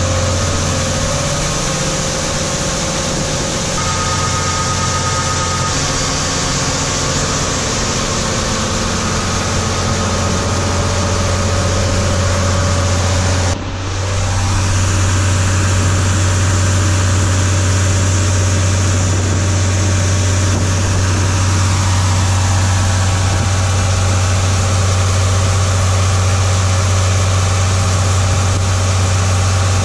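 Diesel farm machinery engine running steadily with a strong low drone. The sound changes abruptly about a third of the way in, then carries on just as steadily.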